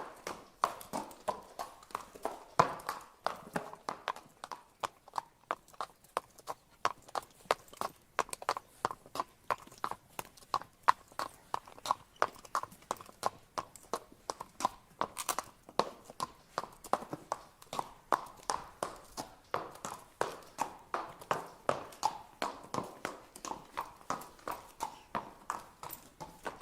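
A horse walking, its hooves striking in a steady clip-clop rhythm of about two to three hoofbeats a second.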